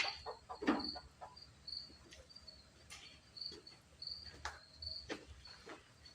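An insect, likely a cricket, chirping in short, even, high chirps about two or three times a second, with scattered clicks and knocks over it.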